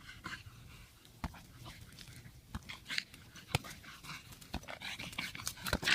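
A dog making small sounds, with scattered short clicks and knocks.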